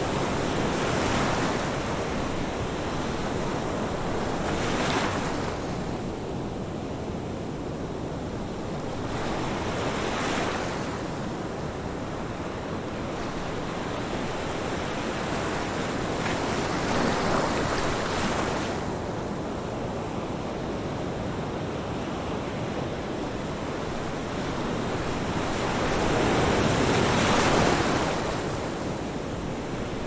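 Ocean surf: a steady rush of breaking waves and foam that swells and ebbs several times as each wave breaks, with the biggest surge near the end.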